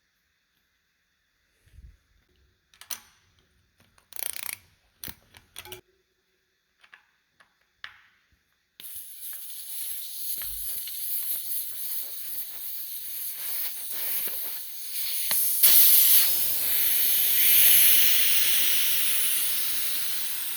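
Scattered clicks and knocks of tire work, then, about nine seconds in, a steady hiss of compressed air filling the new knobby tire on the motorcycle rim, getting louder as it goes on.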